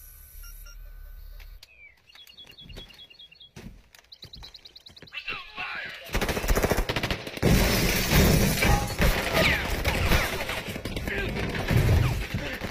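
Film soundtrack: a steady electronic hum and short high beeps, then from about six seconds in a dense volley of gunfire from many police guns firing at once, shot after shot without a break.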